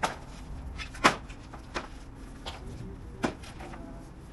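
Four sharp knocks at irregular intervals, the second the loudest, typical of nails being driven into wooden fence boards.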